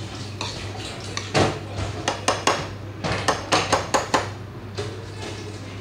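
Kitchen utensil clinking against the cooking pot: about ten sharp clinks in the middle few seconds.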